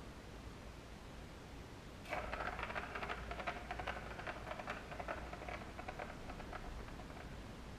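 Plastic ball rolling and rattling around the plastic track of a Catit Circuit toy, starting suddenly about two seconds in and slowly fading over the following five seconds.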